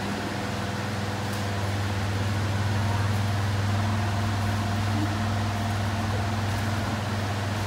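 Electric drum fans running with a steady low hum and whir.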